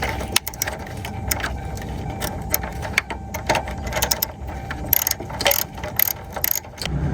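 Irregular metallic clicking of a ratchet wrench tightening a car battery terminal clamp.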